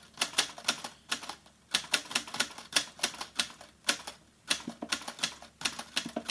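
Typewriter key clacks, a sound effect for text being typed out: quick sharp clicks, several a second, with brief pauses between bursts.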